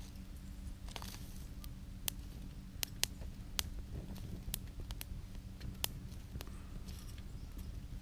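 Wood fire crackling in a stainless-steel wood gasification camp stove: a run of sharp pops and snaps through the middle over a steady low rumble.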